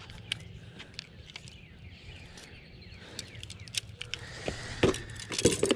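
Scattered clicks and light knocks of a fly rod being handled and pulled apart into its sections, with a busier cluster of clicks and rustling near the end.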